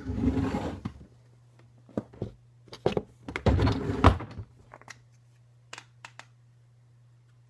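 A burst of rustling, then a run of knocks and thumps with a few faint clicks near the end, as of someone moving about and handling things, over a steady low hum.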